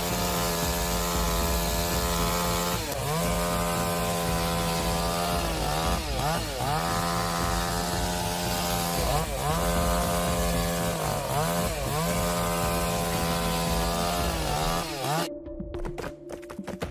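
Chainsaw engine running at high revs, steady except for brief dips in pitch every few seconds that recover at once, as the chain loads up in the cut. About fifteen seconds in it cuts off abruptly, giving way to scattered clicks.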